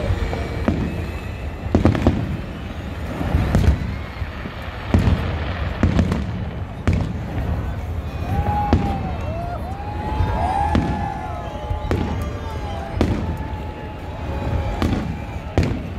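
Aerial firework shells bursting overhead: a string of sharp bangs and crackles, one every second or two, over a low rumble.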